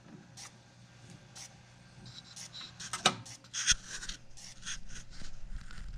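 Light clicks and scratchy rubbing from the vintage Philips record player's tone arm and changer mechanism being handled, over a low steady hum; a deeper rumble comes in about three and a half seconds in.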